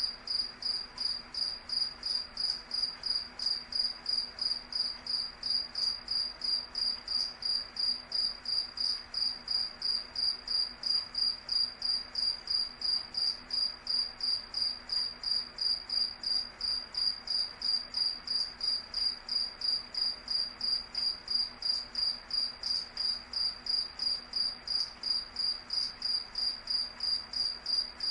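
Cricket chirping steadily in an even, unbroken rhythm of about three high chirps a second.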